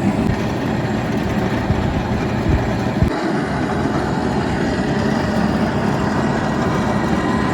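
Cable car running along its cable: a steady low rumble with a haze of wind-like noise, and two short knocks about two and a half and three seconds in.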